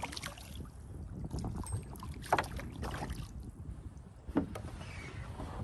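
Water splashing and sloshing around a plastic kayak over a steady low rumble, with two short knocks about two and a half and four and a half seconds in.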